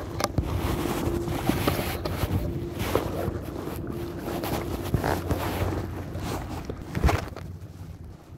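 Wind buffeting the microphone, with scattered knocks and rustles from handling, the sharpest knock about seven seconds in.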